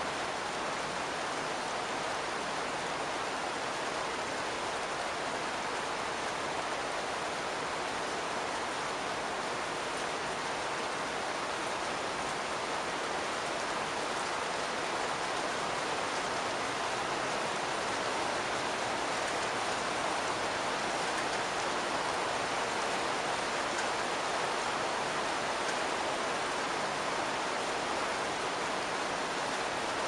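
Steady rain falling on a roof, heard from inside the attic under it: an even patter-hiss with no single drops standing out.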